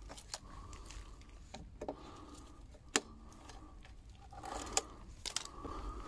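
Several sharp clicks as cutters snip the plastic zip ties holding a car's hubcap onto the wheel, the loudest about three seconds in, with light plastic scraping as the hubcap is handled.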